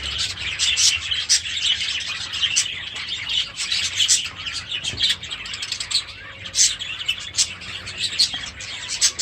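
A flock of budgerigars chattering, a dense stream of short, high chirps and warbles from many birds calling at once.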